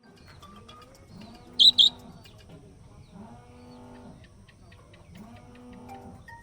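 Budgerigar chirping: scattered faint high chirps, with two loud sharp chirps about a second and a half in, over a quiet repeating music phrase.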